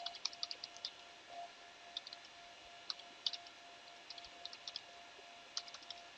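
Computer keyboard typing: short, sharp key clicks in quick irregular runs with brief pauses, over a faint steady hum, as a command is typed in.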